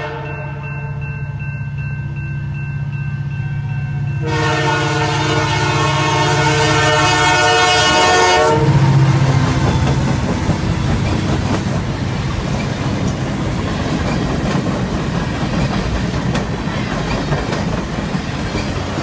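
Canadian Pacific Christmas train's diesel locomotive sounding its multi-note air horn at a grade crossing; the horn gets louder about four seconds in and stops about eight and a half seconds in. The locomotive and the lit cars then roll past with a steady rumble and clatter of wheels on rails.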